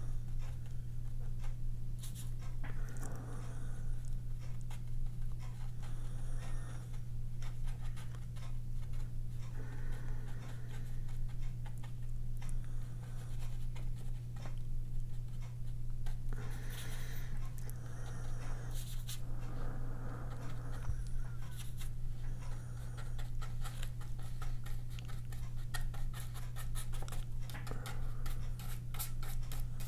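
Flat paintbrush stroking and dabbing acrylic gouache onto grey sketchbook paper: soft scratchy strokes every few seconds, turning into quick repeated dabs near the end. A steady low hum runs underneath.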